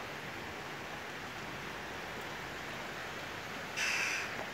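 Heavy rain falling, a steady even hiss, with a brief louder sound near the end.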